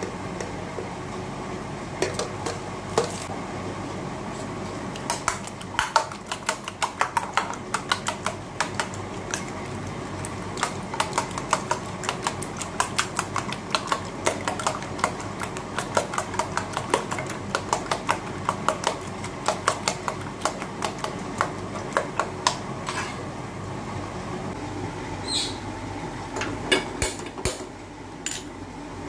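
A steel spoon beating eggs with chopped onion in a stainless steel bowl: quick metal-on-metal clinks, several a second, thinning out near the end, over a steady low hum.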